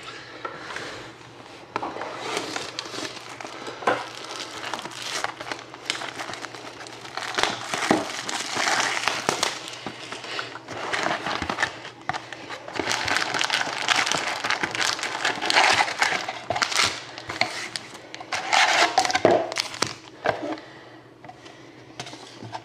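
Foil trading-card packs and box packaging crinkling and rustling in irregular bursts as the packs are handled, pulled from the box and stacked, quieter near the end.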